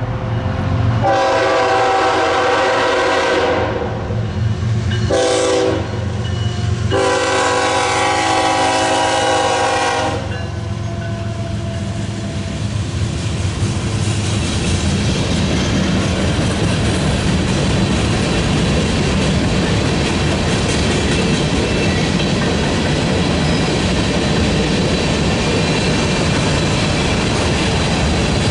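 BNSF freight locomotive air horn sounding three blasts over the low rumble of the diesels: about two and a half seconds long, then a short one, then about three seconds. After that comes a steady rolling noise as the covered hopper cars pass, their wheels clacking over the rail joints.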